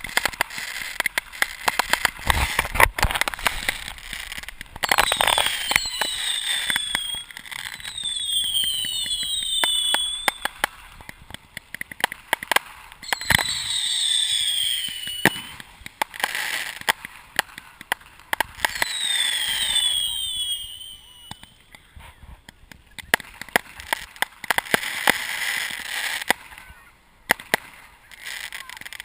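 A fireworks display at close range: a rapid series of bangs and crackles with hissing, and several groups of shrill whistles falling in pitch.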